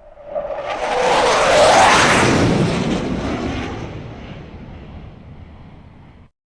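F-16 fighter jet flying past: its jet roar builds quickly, peaks about two seconds in with a sweeping whine, then fades away as it recedes, and cuts off abruptly near the end.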